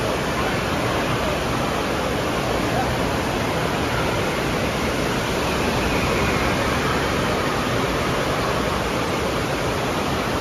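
Steady rush of water pouring from a water slide's tube into a churning splash pool.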